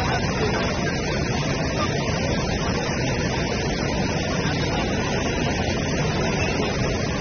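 Floodwater rushing steadily across a road and pouring over its edge down an embankment.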